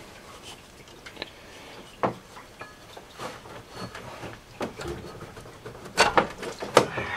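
Hand work in a truck's engine bay: a rag rubbing and a tool being worked at a radiator hose clamp, giving scattered light clicks and knocks, one sharper knock about two seconds in and a cluster of louder clicks near the end.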